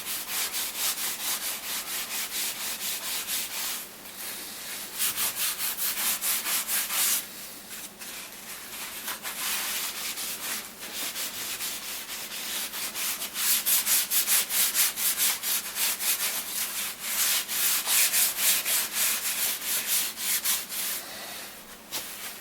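Hand scrubbing on the painted cast surface of a Boxford lathe, in rapid, even back-and-forth strokes to lift old oil stains, pausing briefly a few times.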